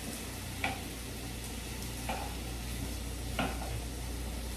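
Sliced zucchini, yellow squash and onion sautéing in olive oil in a skillet: a steady sizzle, with a wooden spatula knocking and scraping the pan three times as the vegetables are tossed. A low steady hum runs underneath.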